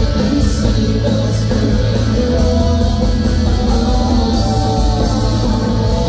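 Live shoegaze rock band playing loud, with electric guitars holding long sustained notes over a dense, steady wall of bass and drums.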